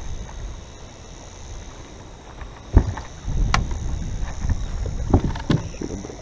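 Wind rumbling on the microphone on an open boat deck, with a sharp click a little under three seconds in and a few knocks and clatters about five seconds in as gear is handled on the deck.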